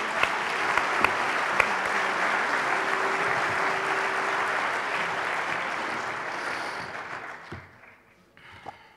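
Audience applauding, dying away about seven seconds in; a couple of faint knocks follow near the end.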